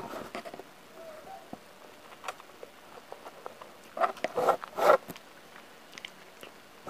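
Plastic fork stirring instant noodles in a paper cup, scraping and clicking against the cup. A cluster of louder stirring sounds comes about four to five seconds in.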